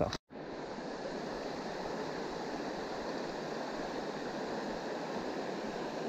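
Steady rushing of creek water running over rocks, an even wash of noise with no breaks.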